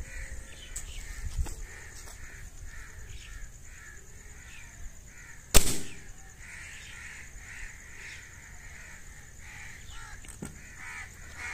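A break-barrel Artemis SR-1000S air rifle fires once, a single sharp crack about halfway through. It is an ordinary shot with no lubricant or diesel behind the pellet. Crows caw repeatedly in the background.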